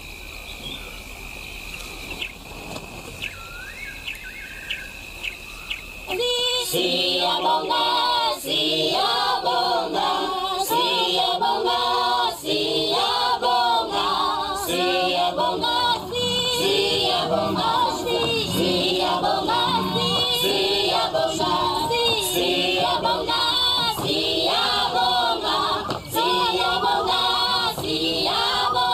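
Night ambience with a steady high insect-like trill and a few short chirps. About six seconds in, a choir singing without instruments comes in loudly as soundtrack music.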